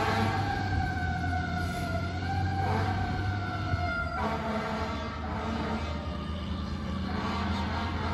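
Fire ladder truck's siren wailing as the truck drives off. Its pitch falls slowly and jumps back up twice, then grows fainter about halfway through. A steady low hum of engines runs underneath.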